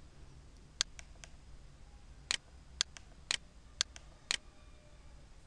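Computer mouse clicking: three light clicks, then five sharper clicks evenly spaced about half a second apart.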